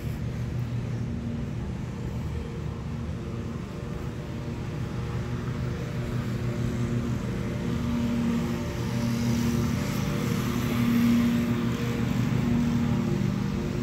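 Small engine of a ride-on lawn mower running steadily, growing louder about two-thirds of the way through.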